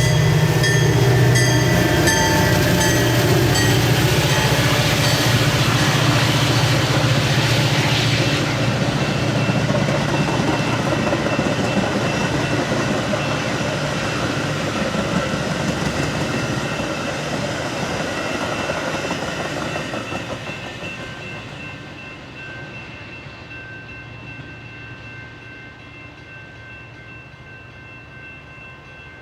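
Metra diesel commuter train passing close by. The locomotive's engine hums loudly and the wheels click rhythmically over the rails in the first few seconds. The sound fades steadily over the last third as the train moves away.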